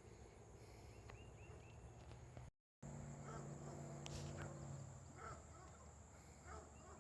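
Faint outdoor ambience with the steady high drone of insects, crickets or similar, broken by a brief total dropout a little over two seconds in.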